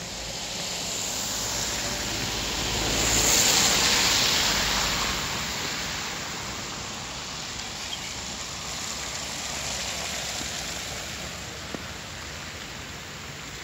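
A vehicle passing on a snowy road, its tyre hiss swelling to a peak a few seconds in and then fading away. There is a small click near the end.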